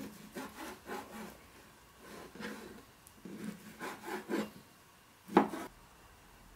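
Chef's knife sawing through raw beef sirloin on a plastic cutting board: several short scraping strokes in three bursts, each ending with the blade tapping the board, then one sharper knock about five seconds in.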